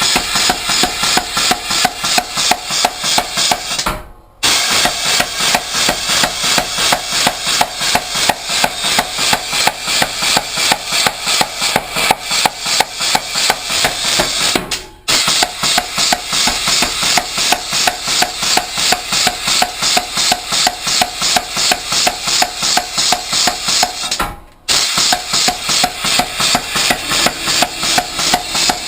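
Home-built blacksmith's pneumatic air hammer running, its ram striking in a rapid, even rhythm. The blows stop briefly three times, then resume at the same pace.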